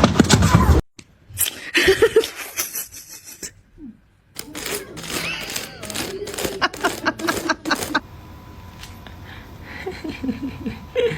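People laughing, with a quick run of sharp clicks or taps in the middle.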